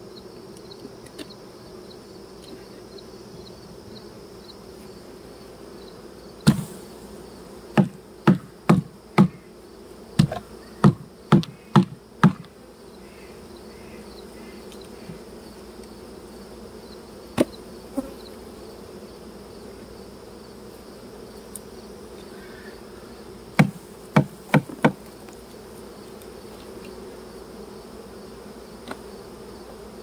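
Honey bees buzzing steadily around an opened hive, broken by runs of sharp knocks: about ten in quick succession around the middle, two more a few seconds later, and four close together later on.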